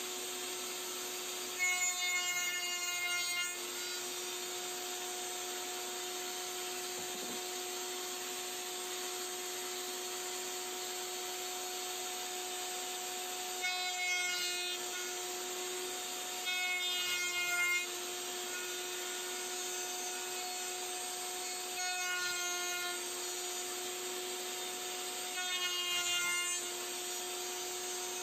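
A table-mounted router bit and its attached dust-collection vacuum run steadily. Five times, the router cuts a straight box-joint slot in the end of an oak board, and each cut raises a louder, higher cutting whine lasting a second or two.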